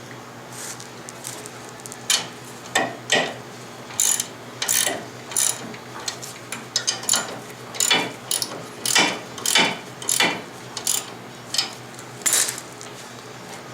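Hand tools working on metal front-suspension parts: a run of short, irregular metallic clicks and clanks, like a ratchet wrench worked in short strokes, beginning about two seconds in.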